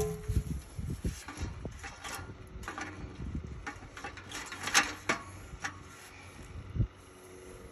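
An aluminum fence section being handled: scattered knocks and rattles, the loudest a little past halfway, with a low thump near the end.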